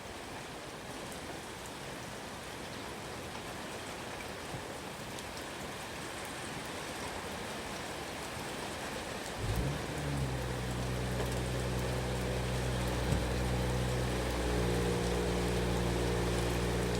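Steady rain falling, an even hiss of drops. About halfway through, an engine starts with a short burst and then runs at a steady low idle hum under the rain.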